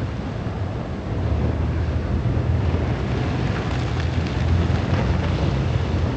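Sea-Doo personal watercraft running at speed: a steady engine drone under the rush and hiss of its spray, growing louder about a second in.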